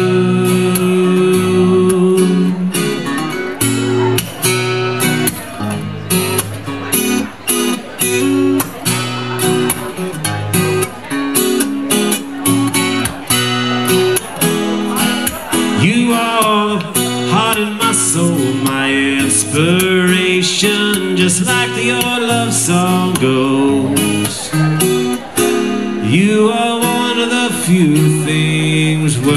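Acoustic guitar played solo with steady strummed chords, an instrumental break in a slow song.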